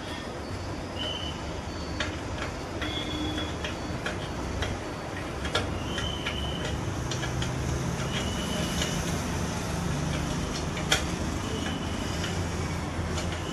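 Metal clicks and ticks of a spanner working bolts on a scooter engine's cylinder head, with a few short high squeaks, over a steady workshop background noise.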